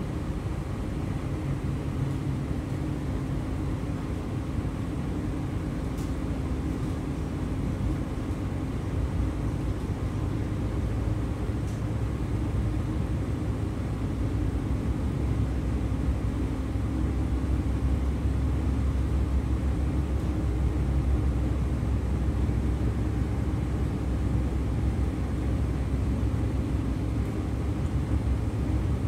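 EG2Tv Ivolga electric train running, heard from inside the car: a steady rumble of the running gear on the track with a steady low hum, the low rumble growing heavier about halfway through.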